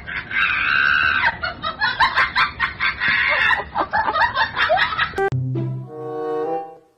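People laughing and shrieking in short, high-pitched bursts. About five seconds in this cuts off suddenly and gives way to music with low, held bass notes.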